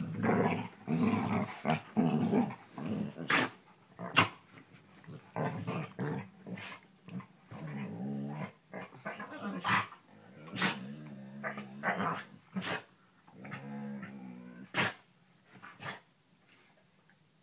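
Two dogs, a German Shepherd and a chocolate Labrador, growling at each other in a play-fight. The growls come in repeated low bouts, with short sharp sounds scattered between them.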